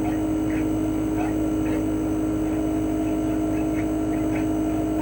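Chofu AE-2844PX mini-split air conditioner outdoor unit running steadily in cooling mode: the GMCC KSK89D53UEZC single-rotary inverter compressor hums with a strong steady tone, under the whoosh of the propeller fan.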